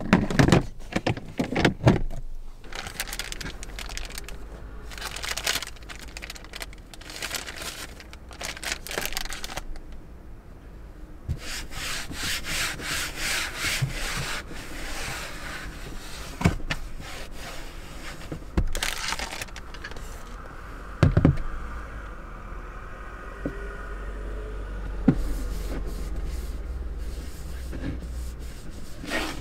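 Rubbing and scraping of things being handled, with several sharp knocks.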